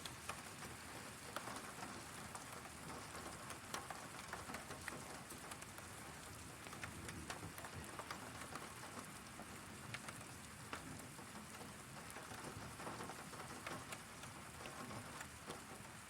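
Heavy rain falling steadily, with many scattered sharp ticks of drops striking hard surfaces.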